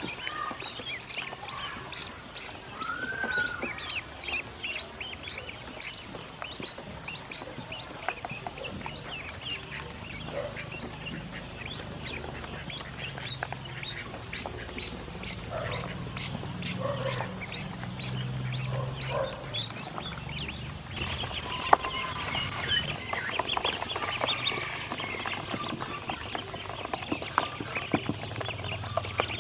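A group of domestic ducklings peeping continuously: a quick, dense string of short high-pitched calls, with a few lower chirps mixed in, growing busier about two-thirds of the way through.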